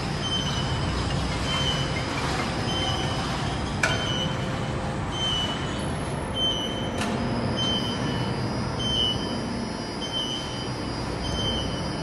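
12-ton overhead bridge crane running as it carries a steel coil on a C-hook: a steady motor rumble with a warning beeper giving a short high beep about every 0.8 s. Two sharp clicks about 4 and 7 seconds in.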